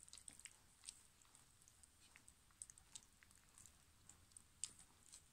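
Faint, irregular wet clicks and smacks of German Pinscher puppies suckling from their mother.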